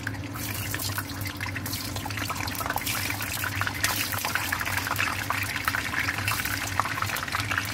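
Peeled hard-boiled eggs frying in hot oil in a wok: steady crackling sizzle of the oil as more eggs are added.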